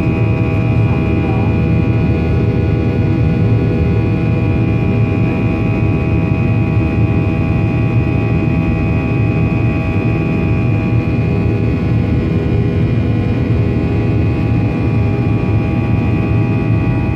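Jet airliner's turbofan engines at climb power, heard from inside the cabin beside the wing during the climb after takeoff: steady loud engine noise with a deep rumble and several steady whining tones over it.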